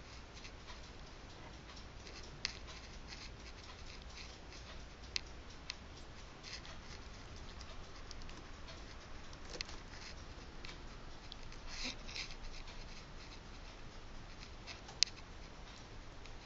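A kitten's paws tapping and scratching on a laptop keyboard and wooden desk: faint, scattered soft clicks with a few sharper single ticks.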